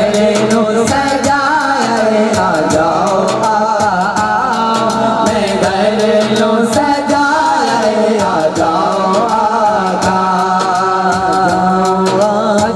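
Male naat reciter singing a long, wavering, drawn-out devotional line into a microphone, with a steady beat behind the voice.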